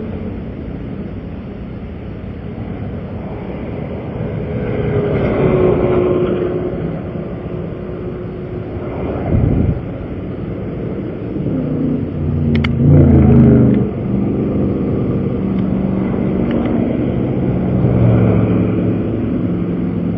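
Cars passing on the interstate, their engine and tyre noise swelling and fading several times. The loudest pass comes about two-thirds of the way through.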